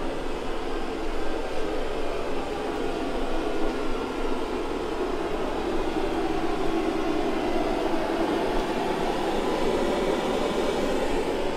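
Steady rushing background noise with no distinct bangs.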